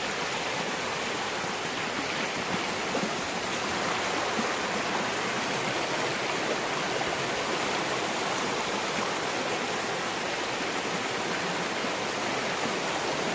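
A flooded river's fast water rushing and churning along the bank in a steady, even rush.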